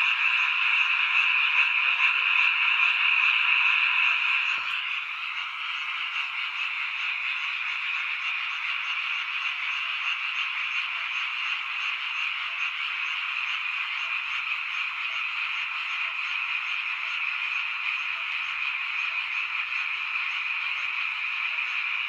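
A chorus of frogs calling continuously as a dense, steady din. It is a little louder for the first four or five seconds, then evens out.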